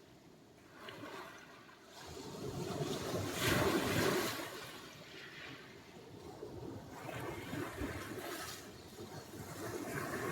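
Sea surf: a wave breaks and washes ashore about three to four seconds in, the loudest moment, followed by smaller waves swelling and falling back.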